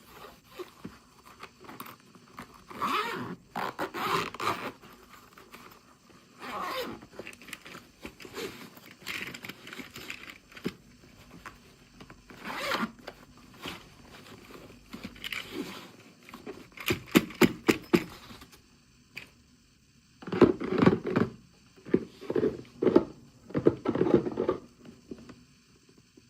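Small plastic toy packaging being handled and opened: irregular scraping, rustling and tearing, with a quick run of clicks and, near the end, several dull knocks.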